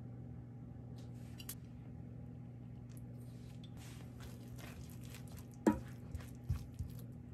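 Soft, wet clicks and taps of food and utensils being handled, with one sharper click about three-quarters of the way through and a few dull thumps after it, over a steady low hum.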